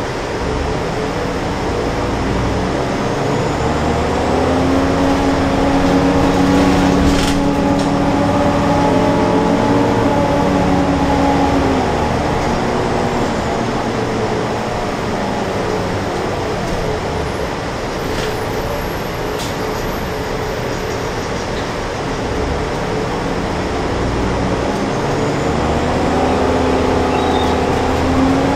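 Inside a moving city transit bus: steady road rumble and rattle, with the engine and drivetrain hum swelling for several seconds, easing off, then building again near the end.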